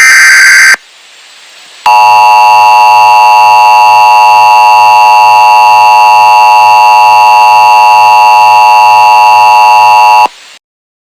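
The last burst of an Emergency Alert System SAME header, a short harsh digital screech, then a second of quiet. Then comes the EAS attention signal, a loud, steady alert tone held for about eight seconds that cuts off abruptly.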